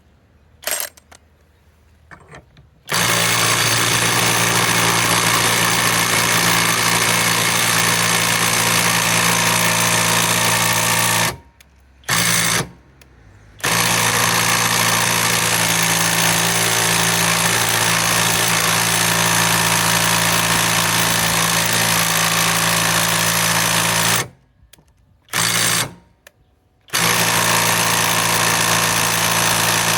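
Kobalt subcompact 3/8-inch cordless impact wrench hammering hard on a very tight fastener, working to break it loose. It runs in long continuous stretches, stopping twice for a second or two with a short burst in each pause.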